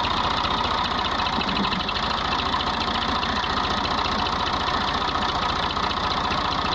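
Massey Ferguson tractor's diesel engine idling with a steady, even beat.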